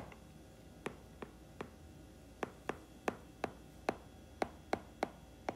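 A stylus clicking against a tablet's glass screen during handwriting: about a dozen short, light taps at uneven intervals, a sharper one at the very start.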